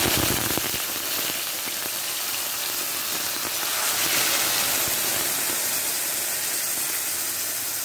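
Milk poured into a hot wok of ghee and caramelised sugar, giving a steady sizzle as it hits the hot metal and turns to steam.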